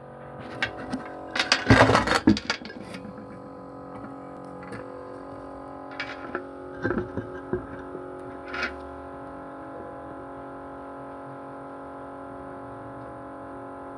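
Small motor running with a steady, vibrating buzz made of many tones together. A cluster of loud rattling knocks comes about two seconds in, with a few more clicks between six and nine seconds.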